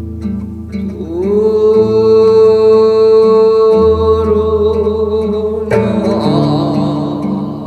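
Korean folk-style (Gyeonggi minyo) singing over plucked-string accompaniment: the voice slides up into a long held note, then about six seconds in breaks into a wavering line with heavy vibrato, while low plucked strings sound underneath.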